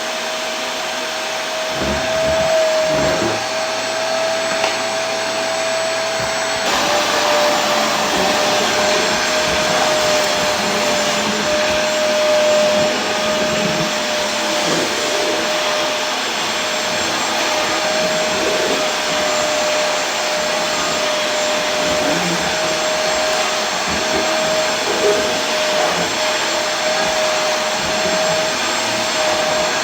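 Vacuum cleaner running steadily: an even rush of air with a constant motor whine, which steps slightly lower in pitch about seven seconds in.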